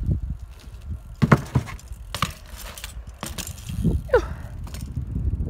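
BMX bike ridden on an asphalt street: low tyre rumble with a few sharp clacks and knocks from the bike, and a brief falling squeak about four seconds in.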